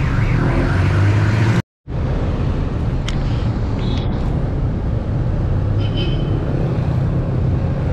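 Steady road-traffic noise and wind rushing over the action camera's microphone as the bicycle rides along a road, with a low rumble of passing motor vehicles. The sound cuts out completely for a moment just under two seconds in.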